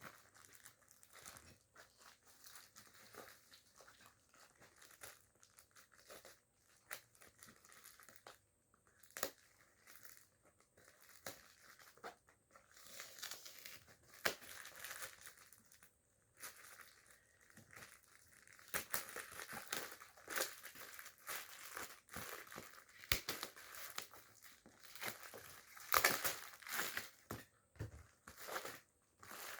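Parcel packaging being opened by hand: irregular crinkling, rustling and tearing, with scattered sharp clicks, getting busier and louder about halfway through.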